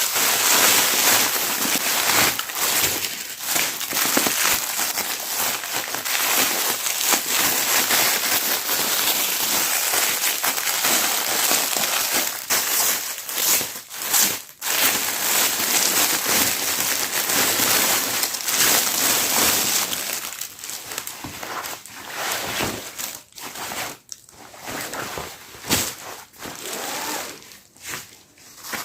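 Plastic packaging crinkling and rustling as a parcel is handled and unwrapped, dense and continuous for about twenty seconds, then thinning to scattered crackles.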